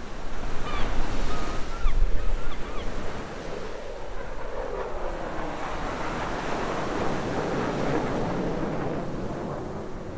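Steady rushing of sea surf and wind, with a few short bird calls in the first three seconds.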